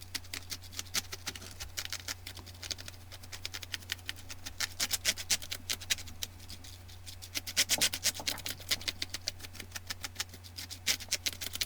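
Soft brush swept briskly back and forth across keyboard keys: rapid, scratchy brushing strokes several per second, busiest in the middle and near the end, over a steady low hum.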